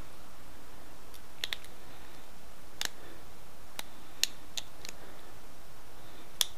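About nine sharp, irregular clicks, each loud, short and dry, from a small stone arrowhead as its side notch is pecked with a pointed tool; each click is a tiny flake breaking off the edge. The loudest come about four seconds in and near the end.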